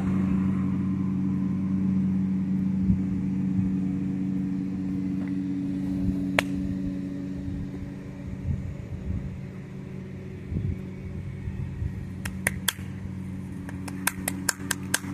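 Steady low hum of a motor vehicle engine idling, fading about halfway through. Near the end, a quick run of sharp footfalls and scuffs on a dirt path as a runner approaches.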